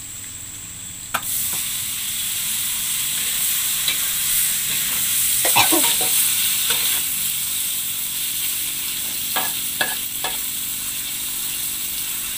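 Food sizzling as it fries in hot oil, with scattered clicks and knocks of a utensil in the pan; the sizzle jumps louder about a second in.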